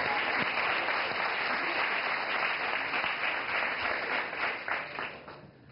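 Studio audience applauding, a dense patter of clapping that dies away near the end.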